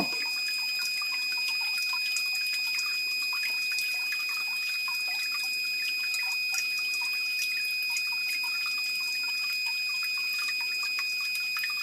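Water dripping and trickling back into a sump pit through the pump from the discharge line, because the check valve has been removed. A steady high-pitched tone sounds over the dripping.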